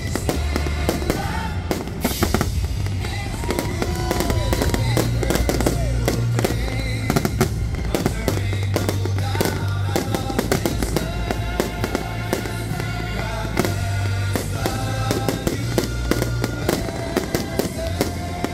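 Aerial fireworks shells going off in a rapid, unbroken string of bangs and crackles. Music with a heavy bass line plays under them.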